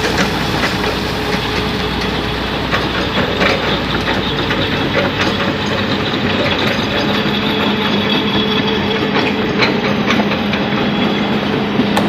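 Heavy diesel engine running steadily, with scattered short metallic clicks and knocks. A low hum grows stronger about halfway through.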